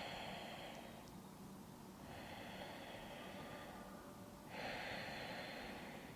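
A woman's slow, deep breathing in and out, paced to a yoga neck-turning exercise. There are three soft, drawn-out breaths, each lasting one to two seconds, and the last is the loudest.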